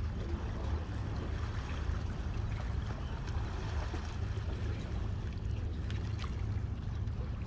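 Steady low rumble of wind buffeting the phone's microphone, with the sea washing against the breakwater rocks beneath it.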